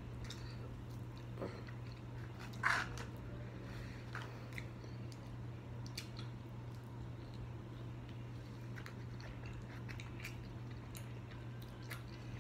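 Close-up chewing and mouth sounds of someone eating chicken wings: scattered small clicks and smacks, with one louder mouth sound a few seconds in. A steady low hum runs underneath.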